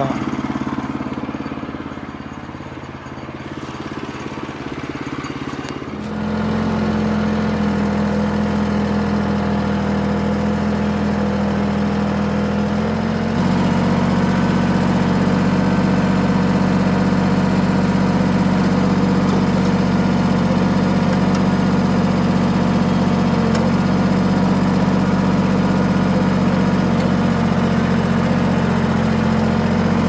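Kubota compact tractor's diesel engine running steadily while it brings a log to the mill on its front grapple. It gets louder about six seconds in and steps up again in speed about thirteen seconds in.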